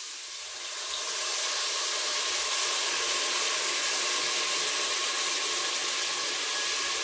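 Tamarind water poured through a strainer onto sardines frying in hot oil in an open pressure cooker, giving a steady sizzling hiss that swells about a second in.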